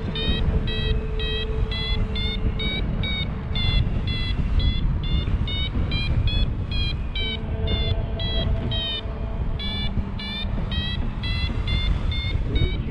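Paragliding variometer beeping in quick succession, about three beeps a second, with the pitch shifting slightly: the climb tone that signals the glider is rising in lift. Wind rushes over the microphone underneath.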